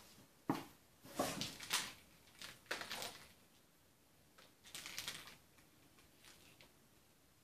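Light clicks and taps from a kitten playing with a small ball on a wooden floor, coming in several short clattering bursts with pauses between.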